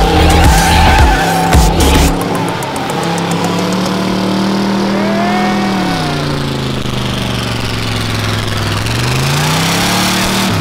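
1968 Pontiac LeMans doing a burnout, its engine held at high revs while the rear tyres spin and smoke. There is heavy, uneven low rumbling for the first two seconds. The engine then holds a steady pitch, the revs sag about halfway through and climb again near the end.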